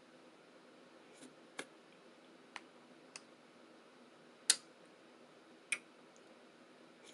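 Close-up eating sounds while eating oatmeal: about six short, sharp clicks at uneven intervals, the loudest about four and a half seconds in.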